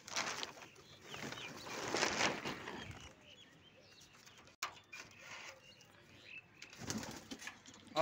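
Pigeons in a coop flapping their wings and cooing, with rustling bursts, the loudest about two seconds in, and a sharp click a little past halfway.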